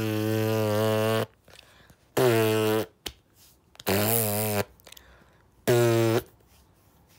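Four separate fart-like low buzzing noises, each on one steady low pitch. The first lasts longest and stops about a second in; the third wavers in pitch.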